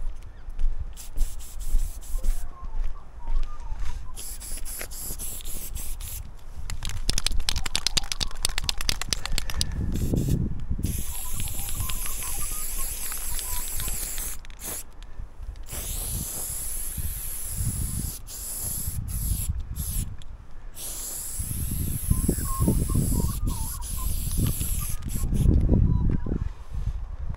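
Aerosol spray paint can spraying in several long hisses. Earlier there is a quick, even run of rattling clicks, the can being shaken, and there are low bumps of handling or wind on the microphone.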